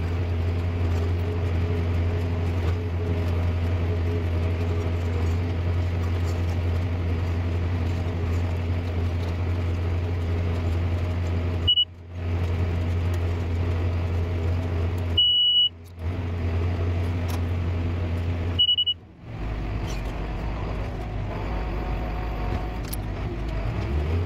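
John Deere tractor engine running steadily under load with the round baler, heard from inside the cab. A short high beep from the baler monitor sounds three times, each followed by the sound cutting out for a moment, and after the third the engine note settles lower.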